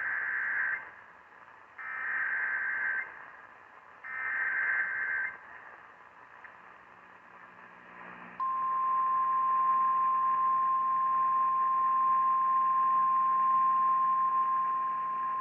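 Emergency Alert System tornado-warning alert heard over a broadcast: the buzzing SAME header data bursts, three times about a second each, then a steady single-pitched attention tone starting about eight seconds in.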